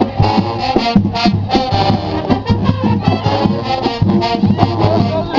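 Marching band playing: brass carrying the tune over a steady beat of drums.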